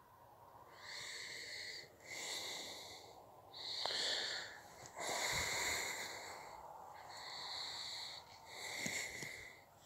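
Breathing close to the microphone: a series of hissy breaths in and out, about one every second.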